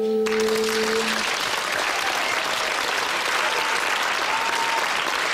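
Studio audience applauding. The applause starts as the song's final held note dies away, about a second in.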